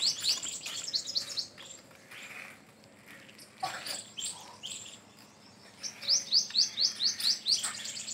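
A bird calling in quick runs of high, downward-slurred notes, about five a second. One run comes at the start and another about six seconds in. Faint scattered clicks and rustles fall between the runs.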